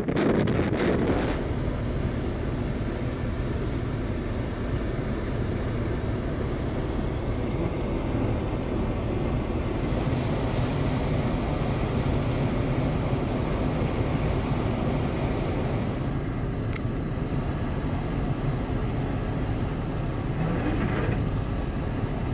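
Steady low rumble of a car running, heard from inside the cabin, with a single faint click about seventeen seconds in.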